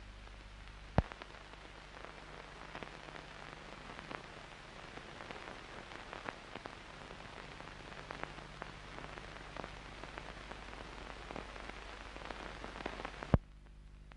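Crackling hiss dotted with scattered pops over a steady low hum, opened by a sharp click about a second in and cut off by another sharp click near the end.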